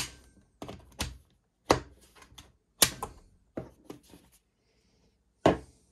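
Sharp plastic clicks and knocks, about eight spread irregularly, from a mains plug being pulled out of a white plastic eight-socket power strip and the strip being handled on a wooden tabletop. There is a gap of about a second before the last knock.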